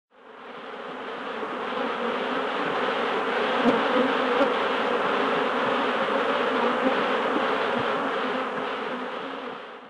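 Dense, steady buzzing of many bees, a swarm or hive mass of them. It fades in over the first couple of seconds and fades out just before the end.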